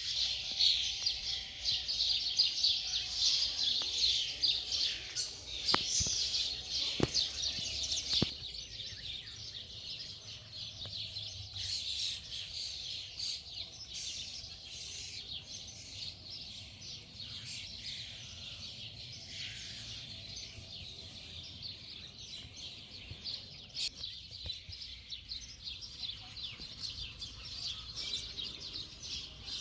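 Many small songbirds chirping and singing at once in a dense, high-pitched chorus, busiest in the first third. Two sharp clicks sound about six and seven seconds in.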